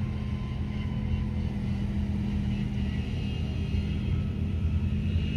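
Steady low rumble of a running motor vehicle, with a constant low hum.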